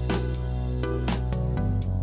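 Outro music with a steady beat: sustained low bass notes under regular drum hits.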